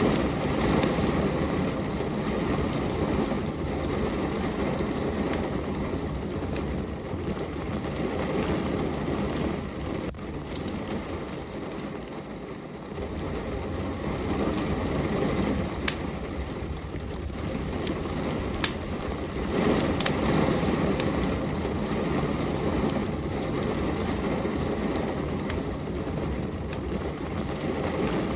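Steady rain mixed with a wood fire crackling in a fireplace, a few sharp pops standing out now and then. The rain noise swells and eases in slow surges, dropping lower about twelve seconds in and building again later.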